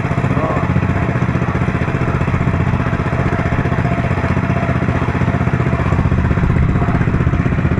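Motorized outrigger boat (bangka) engine running steadily under way, with a fast, even beat.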